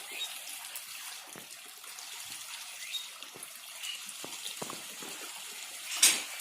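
Steady rushing of running water, with a brief louder surge of noise about six seconds in.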